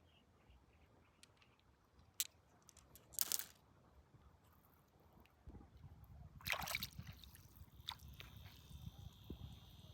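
Water sloshing and splashing in short bursts, the loudest about two-thirds of the way in, with a few sharp clicks and a low rumble in the second half.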